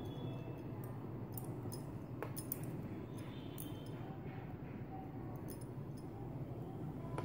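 Knitting needles clicking lightly against each other as stitches are worked and bound off: a scatter of small irregular clicks over a steady low hum.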